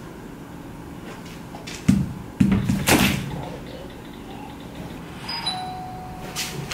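Two sudden low thumps about two seconds in, then near the end an electronic doorbell chime rings a steady tone, signalling someone at the door.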